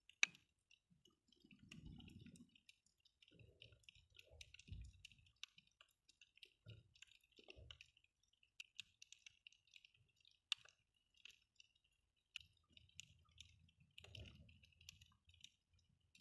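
Faint underwater sound heard through a submerged camera: a steady crackle of tiny clicks, a few sharper clicks, and several dull low thumps.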